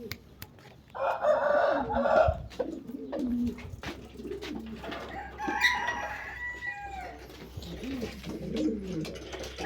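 Birds calling: a loud rooster call about a second in and another rooster call with gliding tones around five seconds, with pigeons cooing low throughout.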